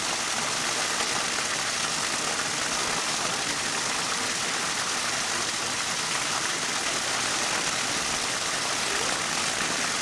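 Steady rush of falling water from a swimming pool's waterfall feature.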